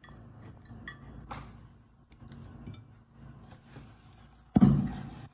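A ceramic serving plate being handled and moved: a few faint clinks, then one loud knock about four and a half seconds in as it is set down.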